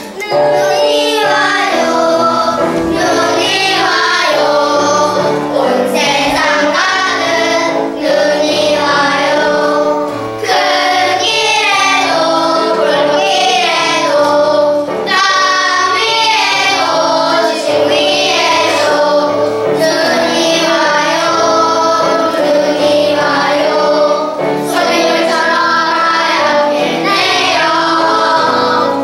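A group of young children singing a song together as a choir over a musical accompaniment.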